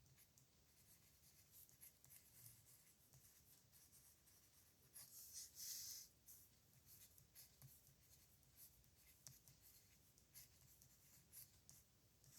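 Pen nib scratching across paper in short handwriting strokes, faint, with a longer, louder stroke about five seconds in.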